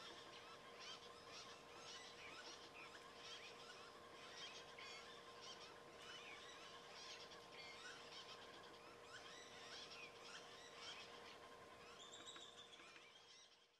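Faint birdsong: many birds chirping and calling over and over in short, quick notes, over a faint steady hum.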